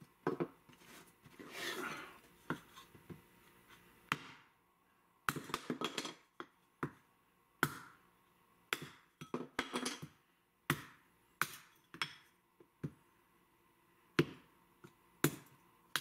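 Short firewood pieces being split into kindling with a Japanese nata on a wooden chopping block: irregular sharp knocks of blade and wood on wood, one to three about every second with short pauses between.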